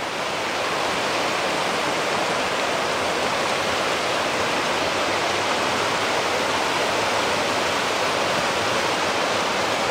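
Mountain stream rushing over boulders in a steady white-water roar.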